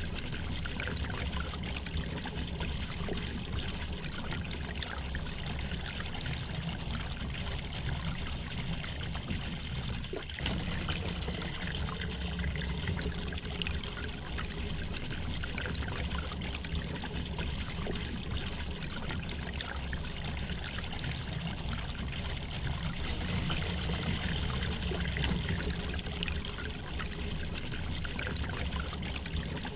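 River water flowing and trickling over stones in a steady, even rush, with a deeper rumble underneath.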